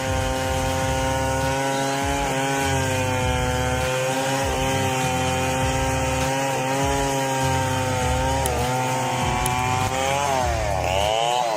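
Stihl 070 two-stroke chainsaw running at high revs while cutting through a log. Its pitch dips briefly under load a little after 2 s, again around 8.5 s, and more deeply between about 10 and 11 seconds in, then recovers.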